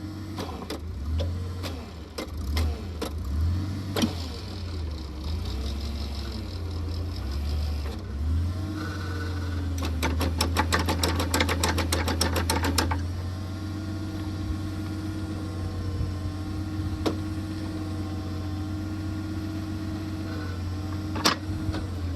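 A post hole digging machine's engine running steadily under hydraulic load while its auger works against a thick tree root. A rapid, even clatter lasts about three seconds in the middle, and a few sharp knocks sound on their own.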